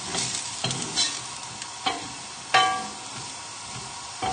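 Wooden spoon stirring diced chorizo, shallots and garlic in a non-stick frying pan: a soft, steady sizzle, slight as the pan is just heating up and the chorizo starts to release its oil, broken by scrapes and knocks of the spoon on the pan about once a second.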